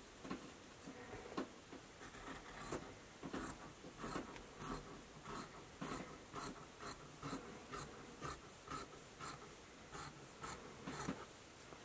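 Dressmaker's shears cutting through polar fleece, a steady run of snips about two or three a second.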